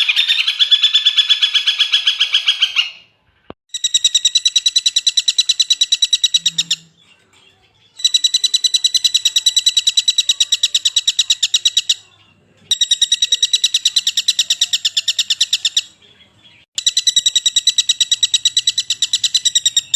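Common flameback woodpecker (pelatuk bawang) giving its rapid rattling trill. It comes in five bursts of three to four seconds each, separated by short pauses, at roughly ten notes a second.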